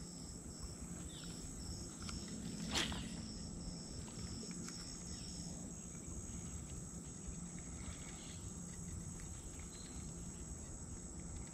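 Insects calling: a steady high buzz with a regular rhythm of short chirps over it, over a low outdoor rumble. There is one brief sharp click about three seconds in.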